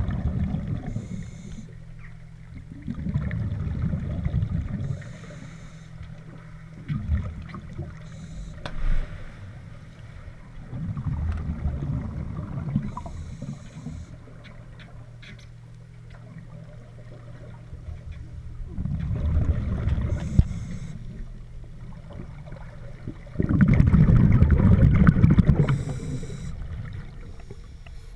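Scuba regulator exhalations underwater: bubbles rushing out in bursts every few seconds, the longest and loudest near the end, over a faint steady low hum.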